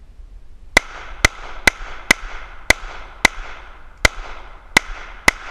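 Hi-Point JHP .45 ACP semi-automatic pistol fired nine times in steady succession, about two shots a second, starting about a second in, each shot loud and sharp with a short echo.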